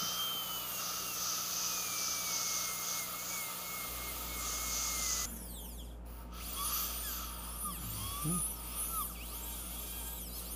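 Dental handpiece spinning a flame-shaped 7901 carbide finishing burr against composite veneers at the gum margins and embrasures. A steady high whine that slowly sinks in pitch over the first five seconds, then after an abrupt change about five seconds in, shorter whines that rise and fall as the burr is worked on and off the teeth.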